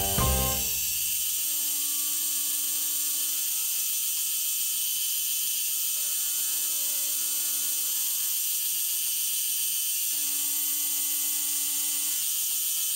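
Benchtop mini milling machine running with a steady high-pitched gear and motor whine while drilling into an aluminium block. A fainter low tone comes and goes three times.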